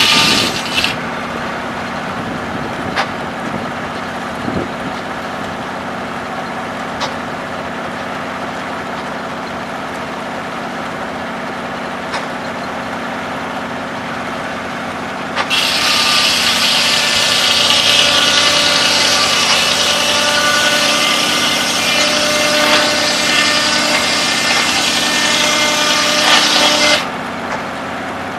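Antique circular sawmill: the engine-driven blade runs steadily, then about halfway through it bites into a log and screams through the cut for about eleven seconds, stopping abruptly as the cut ends. The power unit's drone runs underneath throughout.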